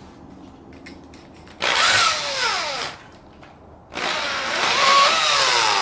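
Electric drill spinning the shaft of a fan motor converted into a neodymium-magnet alternator, run in two short bursts after a few faint handling clicks. Each burst whines up in pitch as the drill speeds up, then drops as it winds down; the second burst is the longer.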